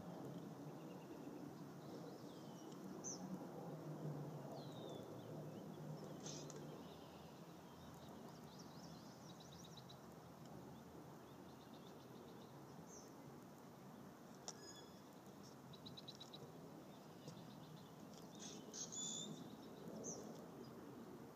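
Faint outdoor ambience of songbirds: scattered chirps, short sliding calls and quick trills, busiest near the end, over a low steady background rumble.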